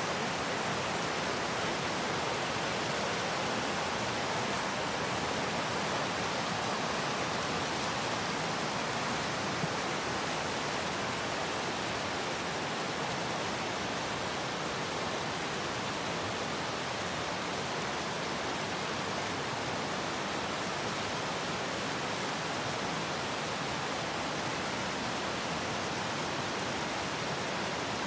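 Fast mountain stream running full with snowmelt, rushing and splashing over a stony, boulder-strewn bed in a steady, unbroken rush of water.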